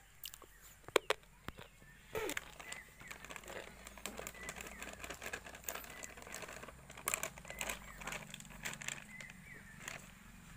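Plastic flour packet crinkling and rustling as atta is poured from it into a steel bowl, after a few sharp clicks about a second in.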